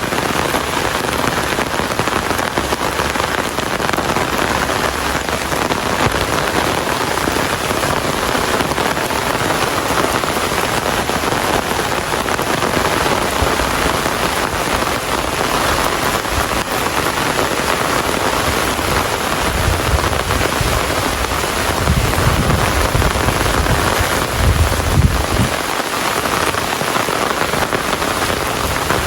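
Steady rain falling, an even hiss. A low rumble swells between about twenty and twenty-six seconds in.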